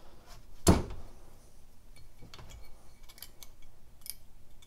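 Small metal clicks and taps from handling a Weber 32/36 carburetor body while its primary throttle plate and shaft are fitted, with one sharp louder knock under a second in and fainter clicks after.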